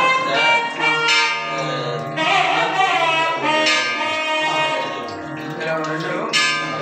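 Music: a pitched melody over a steady low drone.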